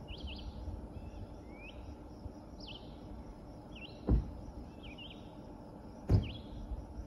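A songbird repeating short, quick up-and-down phrases about once a second over a low outdoor rumble, with two sharp thumps about four and six seconds in.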